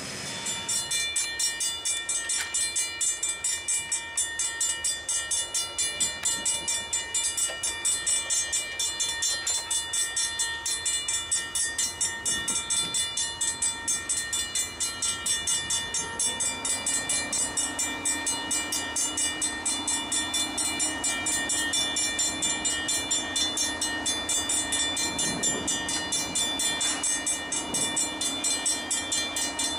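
Railroad grade-crossing warning bell ringing in rapid, even strokes while the crossing is activated, the signal that a train is approaching.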